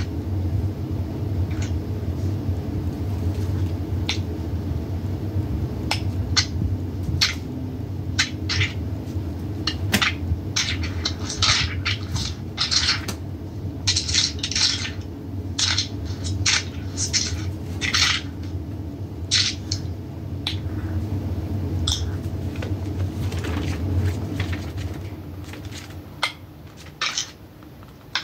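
Scattered light clicks and clinks at an irregular pace over a steady low hum; the hum drops away near the end.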